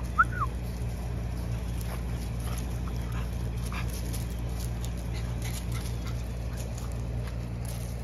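French bulldog giving two short, high yips right at the start, over a steady low hum and faint scattered rustles.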